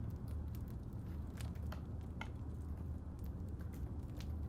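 Crackling fireplace: a steady low rumble with a few scattered sharp pops and crackles.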